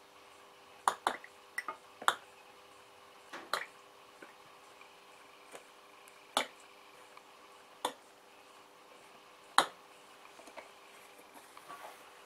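Plastic squeeze bottle squirting oil onto the bearings inside an open transfer case: about eight short, sharp squirts and clicks at irregular intervals, over a faint steady hum.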